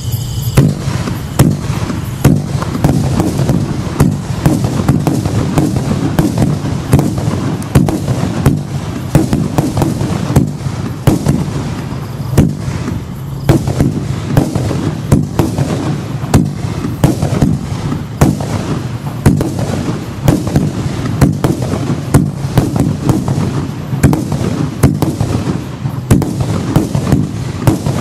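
Absolute Fireworks 'Samba' single-ignition barrage cake firing a rapid, unbroken run of shots, several a second, with sharper, louder reports every second or so.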